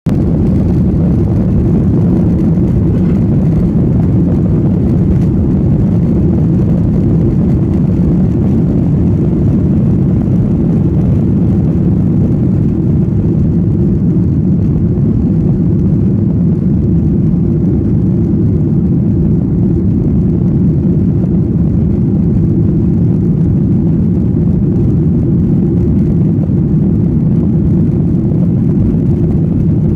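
Jet airliner's turbofan engines at takeoff power, heard from inside the passenger cabin: a loud, steady low rumble through the takeoff roll and lift-off.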